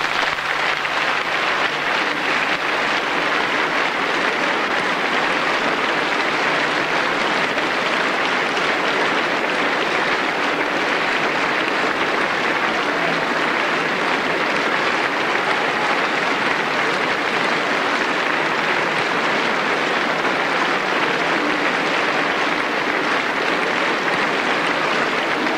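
Audience applause, a dense, even clatter of many hands clapping that keeps up without a break.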